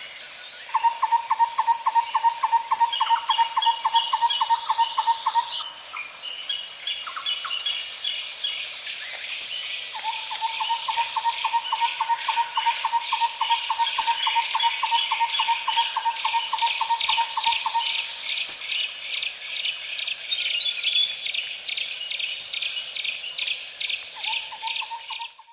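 A chorus of birds and insects calling over a steady high-pitched buzz. A fast, even trill runs for several seconds at a time, twice at length and again near the end, among repeated short chirps. The whole fades out at the very end.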